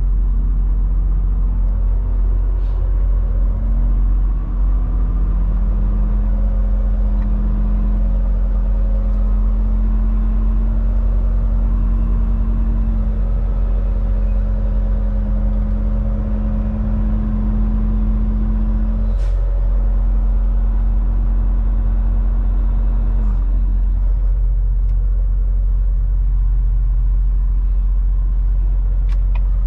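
Semi-truck diesel engine running as heard inside the cab while the tractor creeps around at low speed. A steady drone rises a few seconds in and drops away about 23 seconds in.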